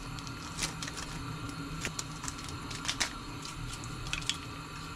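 Instant-ramen seasoning sachets being shaken out over an aluminium pot: scattered light clicks and crinkles of the plastic packets over a steady low hum.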